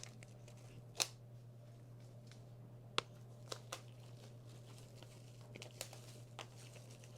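Faint, scattered rustles and clicks of an album's packaging being handled and opened, a handful of separate crinkles and taps a second or two apart, over a steady low hum.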